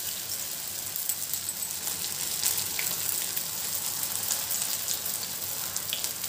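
Potato patties shallow-frying in hot oil over a medium flame: a steady sizzle with scattered small pops and crackles.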